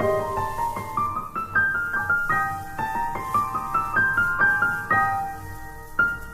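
Background piano music: single notes played one after another in a gentle melody, each note struck and then fading.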